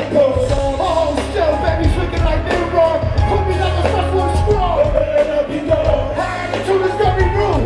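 Live hip-hop concert music over a large PA system: a heavy bass beat with a sung vocal line over it.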